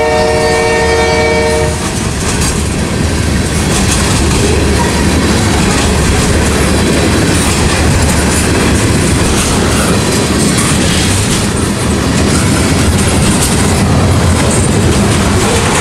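A locomotive horn sounds a chord that cuts off just under two seconds in. After it, the loud, steady rumble and clatter of a mixed freight's tank cars and boxcars rolling past at track side.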